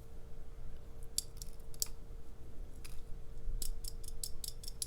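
Light clicks as coil springs are picked out of the pin chambers of a MAKO SFIC lock core: a few scattered ticks, then a quick run of them near the end. A faint steady hum sits underneath.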